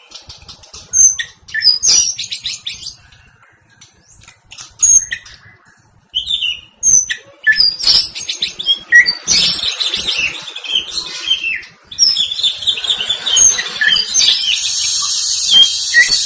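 White-rumped shama (murai batu) singing loudly: sharp whistled notes and fast rattling phrases, with short pauses, building into a dense continuous harsh trill in the last few seconds. This is its rough rolling, rapid-fire fighting song, given when provoked by a rival.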